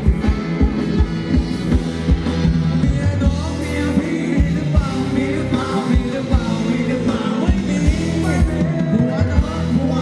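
Live band playing Thai ramwong dance music, with singing over a steady drum beat.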